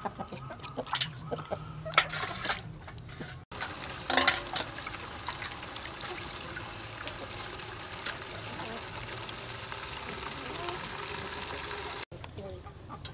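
Water splashing and trickling in a large aluminium basin as a plucked whole chicken is washed and cleaned by hand with a knife. There are a few sharp splashes in the first few seconds, then a steadier wash of water sound.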